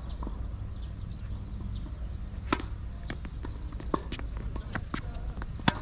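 Tennis rally: the ball struck by racquets and bouncing on the court, a run of sharp pops about one every half-second to second, starting about two and a half seconds in.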